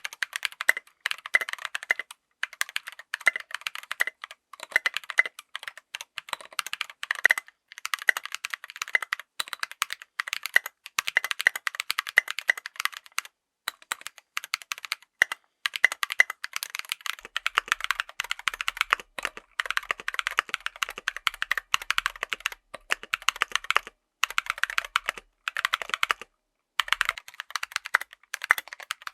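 Typing on a full mechanical keyboard fitted with tactile switches: fast runs of sharp keystroke clicks and clacks, broken by a few brief pauses.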